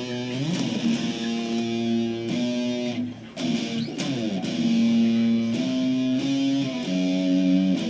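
Electric guitar played through a Boss SD-2 Dual Overdrive pedal. It plays held single notes and double-stops, sliding between them, with a short break about three seconds in.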